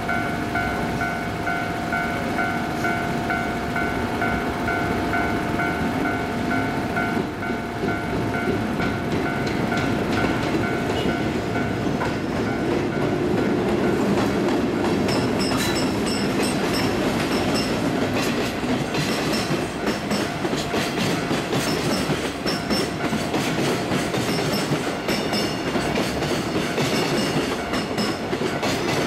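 Freight train passing over a level crossing, its wagons rumbling and the wheels clacking over the rail joints. A Japanese level-crossing warning bell rings over it with an even, repeating tone, clearest in the first half.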